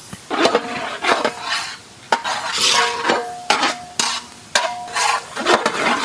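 A metal ladle stirring and scraping in a metal cooking pan, knocking against it about twice a second with short ringing clinks, over a sizzle as chopped onion fries in oil.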